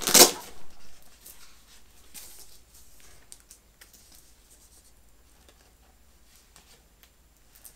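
Nylon plate carrier being handled: a sharp rustle right at the start as the shoulder strap is tugged, then faint scattered rustles and small clicks of fabric and fittings that fade out.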